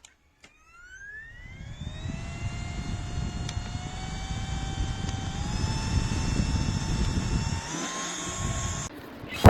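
Handheld turbo fan's high-speed motor spinning up with a rising whine after a button click, then running steadily over the rush of air. The whine steps up in pitch twice as the speed setting is raised. It cuts off near the end with a couple of clicks.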